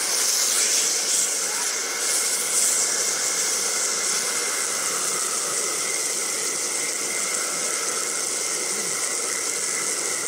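Large rump steak searing on a hot cast-iron pan with a steady sizzle. It is brightest just after the meat is pressed down, then settles to an even hiss.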